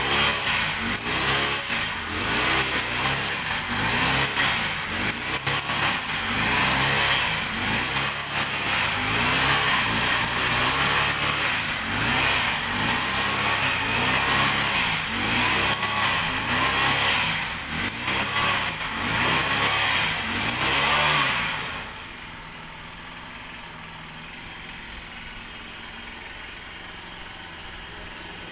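Petrol brush cutter engine running under load, its speed rising and falling about once a second as it cuts through weeds. About 21 seconds in it drops to a steady, much quieter idle.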